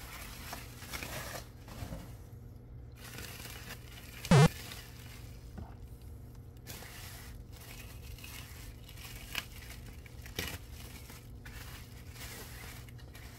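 Bubble wrap and packing tape being pulled off a packaged action figure: crinkling and rustling plastic with scattered clicks, and one short, loud ripping sound about four seconds in.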